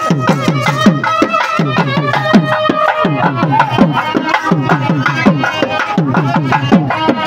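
Fast drumming in which many of the low strokes bend down in pitch, with a sustained melody line above it, accompanying a temple deity dance.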